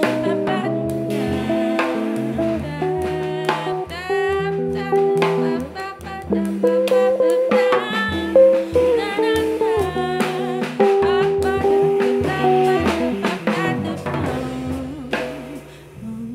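Live band music: a woman singing over electric bass and a drum kit. The playing thins out near the end.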